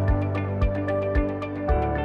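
Background electronic ambient music: sustained synth chords over a steady kick beat, about two beats a second, with a chord change near the end.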